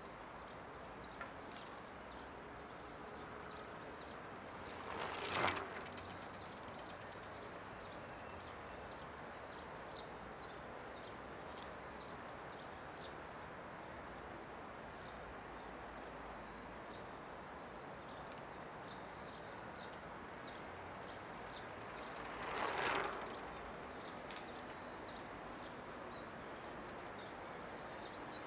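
A bicycle passes close by twice, about five seconds in and again some seventeen seconds later. Each pass is a rush of tyres on asphalt that swells and fades within about a second. Between the passes there is steady outdoor background noise with frequent short bird chirps.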